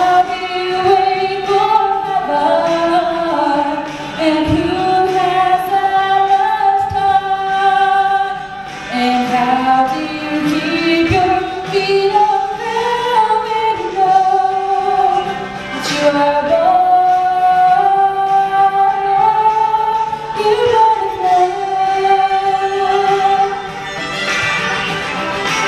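A young woman singing solo into a microphone, the melody moving through long held notes.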